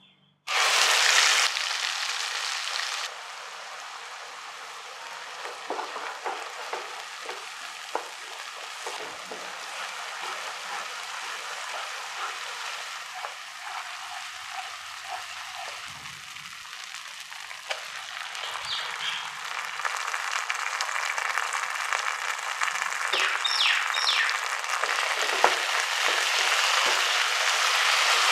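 Ground masala paste hits hot oil in a nonstick pan with a sudden loud sizzle, then fries steadily while a wooden spatula stirs and scrapes it, with scattered light clicks. The sizzling grows louder in the second half as chopped tomatoes fry in the masala.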